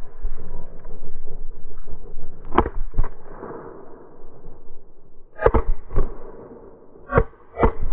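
Shotgun shots at a flushed pheasant: six sharp reports in three quick pairs, over a low rumble.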